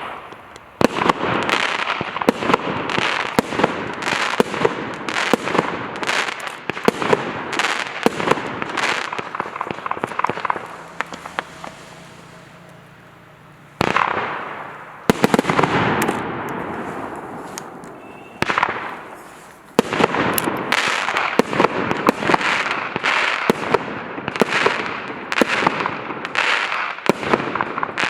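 A 60-shot aerial firework cake firing: a rapid run of launch thumps and bursts with crackling tails, easing off briefly around the middle, then resuming with loud single bursts and another fast volley.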